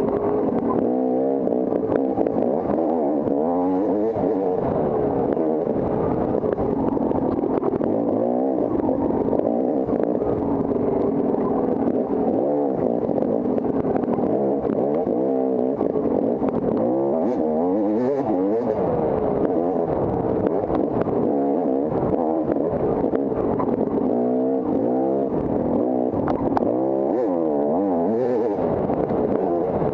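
Off-road motorcycle engine under constant throttle changes, its pitch rising and falling every second or two as the bike is ridden hard over a rough trail.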